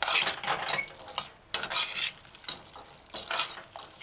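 Metal spoon stirring a thick chickpea and saltfish stew in an aluminium pot, scraping against the pot in a quick, irregular series of strokes.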